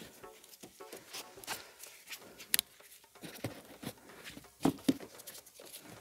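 Handling noise from wiring work under a car's floor carpet: rustling of carpet and cables with scattered clicks and knocks. The loudest is a sharp click about two and a half seconds in, followed by two knocks near the five-second mark.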